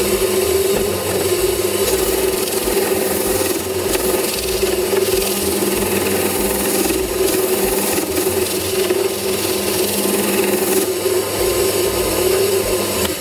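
Bench drill press running with a homemade sandpaper sanding drum in its chuck, sanding a wooden block pressed against the spinning drum: a steady motor hum under the rasp of abrasive on wood.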